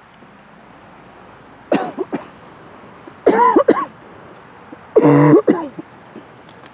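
Sheltie puppy barking in three short bursts, about a second and a half apart, over a steady background of wind.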